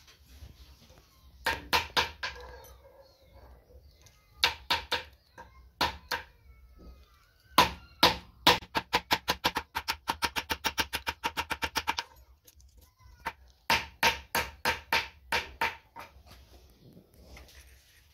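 Hammer blows on a silver ring strip resting on a small steel anvil, each blow ringing with a clear metallic tone. The blows come in short groups, with a fast, even run of about five a second in the middle, as the ring shank is forged flat.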